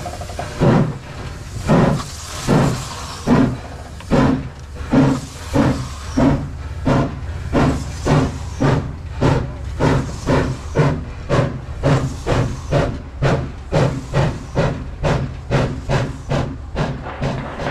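Exhaust chuffs of Laona & Northern No. 4, a 1916 Vulcan 2-6-2 Prairie-type steam locomotive, pulling away: the beats start slow and quicken steadily as it picks up speed, fading as it moves off down the track, with steam hiss under each beat.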